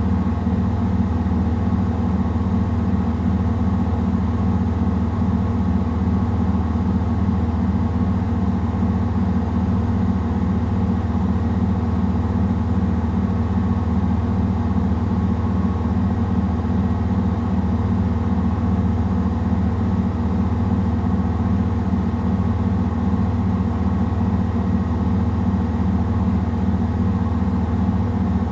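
Samsung WW70T4020EE front-loading washing machine on its spin cycle with a load of clothes: a loud, steady hum from the motor and drum with a fast, even flutter.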